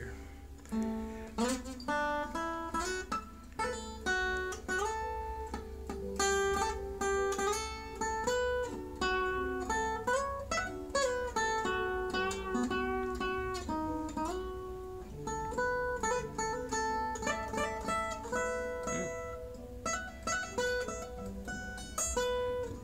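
Fender DG-20CE acoustic guitar played lead: single plucked notes in running melodic lines, with a few notes bending in pitch.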